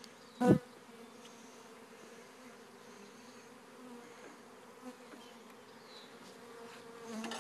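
Italian honeybees swarming in the air around a hive just after being shaken out of their shipping package, a steady low-pitched buzzing hum. One sharp knock about half a second in.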